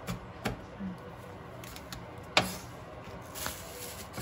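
Kitchen knife chopping green onion on a wooden cutting board: a few separate knife strikes, the loudest about halfway through. A plastic bag rustles near the end.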